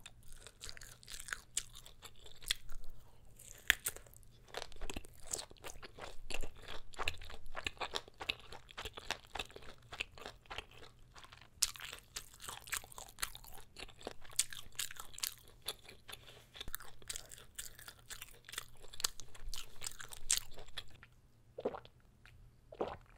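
Close-miked chewing of a bite of kielbasa sausage, a dense run of wet, crunchy clicks as the springy casing snaps between the teeth. The chewing stops about two seconds before the end, and a few separate swallows of a drink follow.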